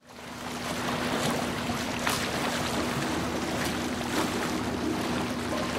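Motorboat under way on water: water rushing and splashing over a steady low engine hum, fading in over the first second.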